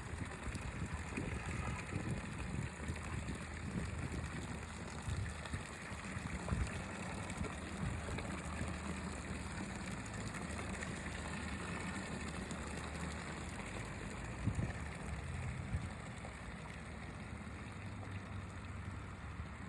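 A small waterfall splashing and gurgling steadily, with occasional low bumps underneath.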